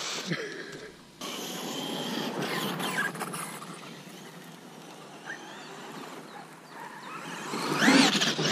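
Brushless electric RC monster truck running on sand: the motor's whine rises and falls over the noise of tyres churning the sand. It is loudest near the end, as a truck accelerates hard close by and throws up sand.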